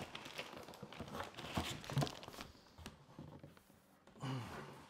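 Packaging being handled: scattered soft crinkles of plastic wrap and scrapes of cardboard and foam as a heavy radio transceiver is lifted out of its box.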